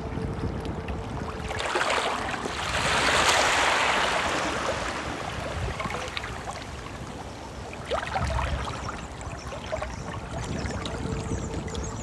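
Calmly flowing stream, water running steadily, swelling louder for a couple of seconds about two to four seconds in.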